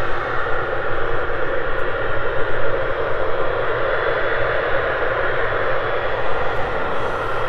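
Boeing 777F's twin GE90 jet engines running at low taxi thrust: a steady rumble and hiss with a faint high fan whine over it.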